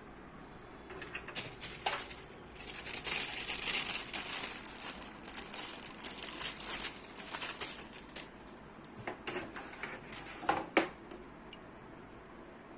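Rustling and crinkling of computer parts and cables being handled, with scattered sharp clicks, while the hard disk and its SATA cable are being fitted. The rustle is strongest in the first half, and a few louder clicks come near the end.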